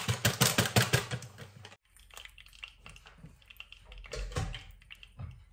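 Dry rice grains pouring from a plastic bag into a rice cooker pot, a dense rattle of fast clicks that cuts off abruptly about two seconds in. After that, only faint scattered knocks and clicks from handling the rice cooker.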